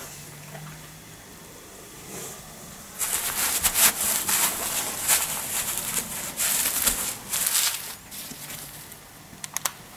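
Rustling and crinkling of a disposable nappy being handled and pressed by hand, in irregular bursts from about three seconds in to about eight seconds in, followed by a few quick clicks near the end.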